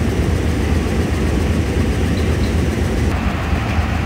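Diesel locomotive engine running at the head of a passenger train, a steady low rumble.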